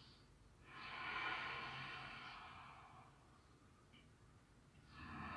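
Soft, slow, deep breathing held in a yoga pose: one long breath of about two seconds, fading away, then a second breath beginning near the end.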